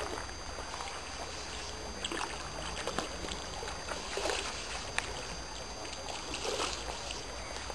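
Soft, irregular water splashing from a hooked rainbow trout thrashing at the surface near the bank, over a low rumble of wind on the microphone.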